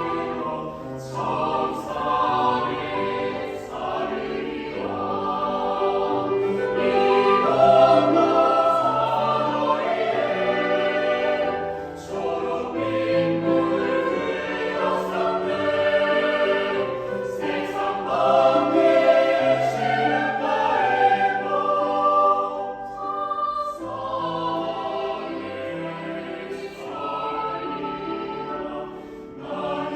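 A choir singing in sustained chords, swelling louder twice.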